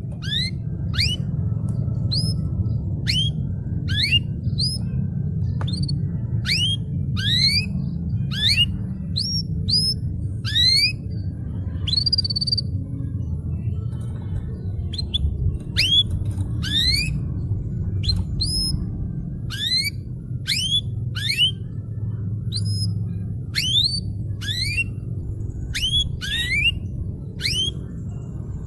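Domestic canary singing a run of separate rising whistled upsweeps, about two a second, some held briefly at the top, over a steady low hum.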